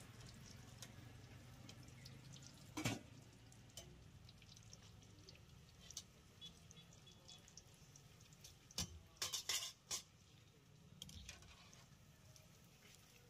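Battered fritters frying in a kadai of hot oil: a faint, steady sizzle dotted with small crackles. A metal spatula knocks against the pan once about 3 s in and several times around 9 to 10 s as the fritters are turned and lifted.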